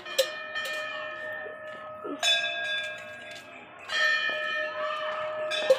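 A metal temple bell struck four times, about every two seconds, each stroke ringing on with a steady tone until the next.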